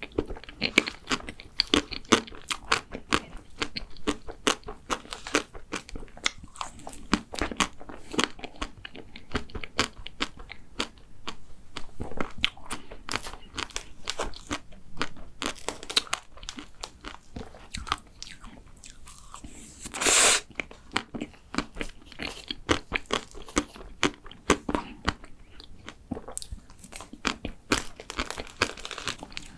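Close-miked chewing and crunching of a chocolate macaron: irregular crisp crackles of the shell and wet chewing throughout. About two-thirds of the way through comes one louder, longer burst.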